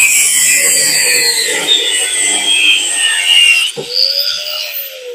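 DeWalt angle grinder with a cut-off wheel cutting through the steel shell of a small refrigerator compressor, a loud steady grind. Near four seconds in the cut finishes with a knock as the top comes free, and the grinder winds down, its whine falling slowly in pitch.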